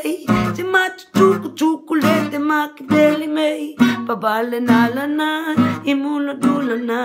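A man singing a wordless, chant-like melody with long held notes while strumming an acoustic guitar in a steady rhythm.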